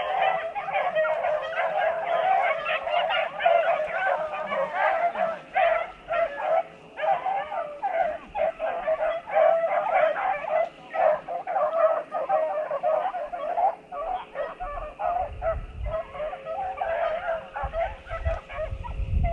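A pack of beagles baying in full cry, many voices overlapping without a break: hounds on the trail of a running rabbit.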